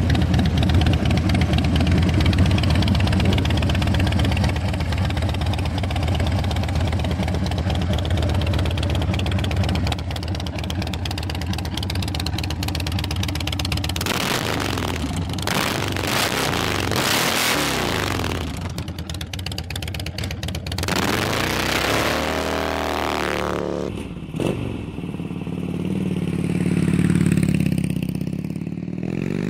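Harley-Davidson Dyna Street Bob's Twin Cam 96 V-twin running through Vance & Hines aftermarket pipes: a steady idle for about the first half, then blipped several times, the revs climbing and falling back.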